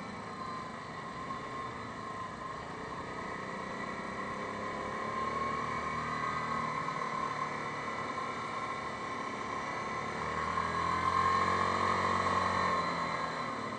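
Yamaha Grizzly 550 ATV's single-cylinder four-stroke engine running while the quad is ridden, heard close up from the handlebars. The engine gets louder about ten seconds in, then eases off near the end.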